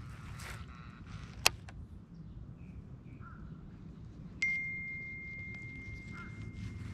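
A single sharp click about a second and a half in. About four seconds in, a steady high-pitched single tone starts suddenly and holds, over a faint low hum.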